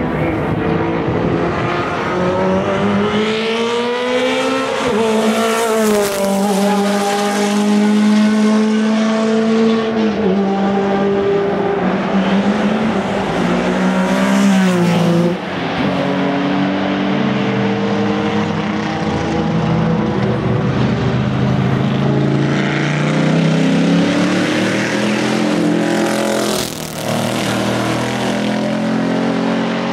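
Historic sports-prototype racing car engines running hard past the track, their notes rising and falling as cars accelerate and pass. There is a sharp drop in pitch about halfway through and another near the end.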